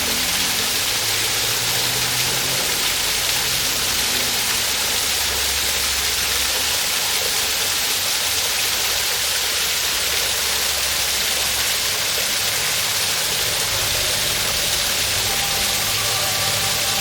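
Steady rushing of a waterfall. Underneath it sit low sustained tones that shift every few seconds.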